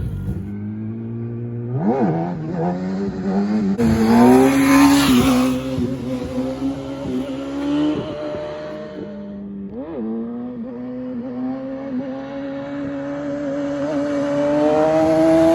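Small off-road vehicle engine running under a rider, surging with throttle blips a few times and climbing steadily in pitch near the end as it speeds up.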